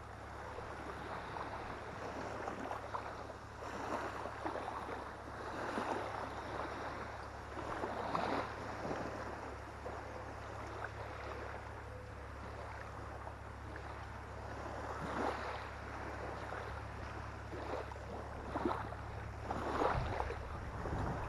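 Legs wading through shallow saltwater, sloshing and splashing every second or two, over a steady low wind rumble on the microphone.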